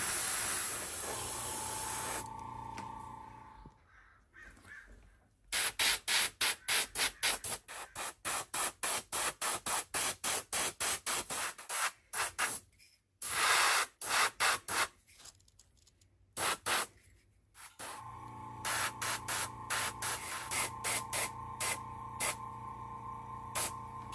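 Airbrush spraying paint: one long burst of hiss, then a long run of short trigger bursts, about three a second. A small motor hums steadily under it near the start and again near the end.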